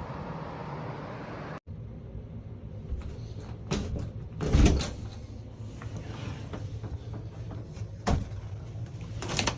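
A steady rushing noise that cuts off suddenly, then a door being handled: a few knocks and thumps, the loudest about four and a half seconds in.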